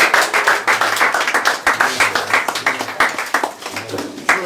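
A group of people clapping, many hands in quick, dense claps that thin out a little near the end.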